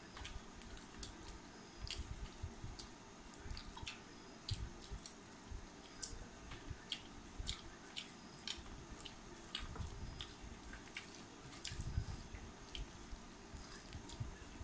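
People eating rice and fish curry by hand: chewing and wet mouth clicks, with fingers squishing the rice, and a scattering of small sharp clicks and a few soft low knocks.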